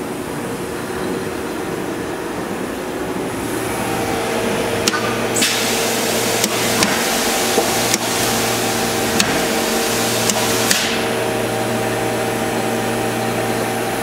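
Agma VMC-84 vertical machining center running its test program, spindle at about 7,000 rpm: a steady machine hum with several whining tones and a low drone that cuts in and out. From about a third of the way in, a loud hiss lasts about five seconds, with sharp clicks and knocks scattered through the middle.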